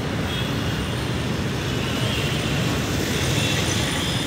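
Street ambience: a steady low rumble of road traffic.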